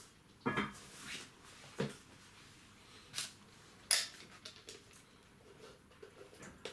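A few separate sharp knocks and clicks, four or so spread over several seconds, with quiet room tone between them.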